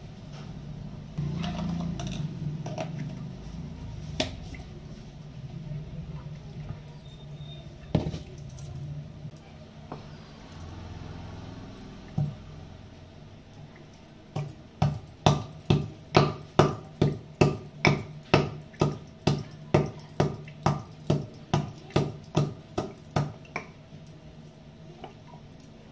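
A wooden pestle pounding in a hand mortar: a run of about twenty sharp, even strikes at roughly two a second, starting about halfway through. A steady low hum lies underneath, with a few loose clicks before the pounding.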